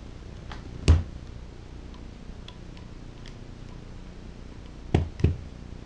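Small metal clicks and knocks of a screwdriver working on a Tecumseh small-engine carburetor. One sharp knock comes about a second in, then a few faint ticks, then two more sharp knocks close together near the end.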